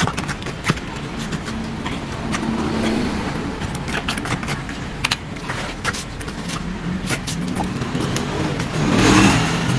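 A long knife slicing and scraping through the thick skin and flesh of an ocean sunfish, with many short clicks and scrapes over a steady street-side hum. A louder noisy rush comes about nine seconds in.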